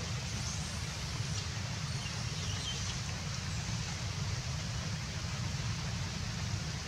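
Steady outdoor background noise, a low rumble under an even hiss, with a few faint high bird chirps.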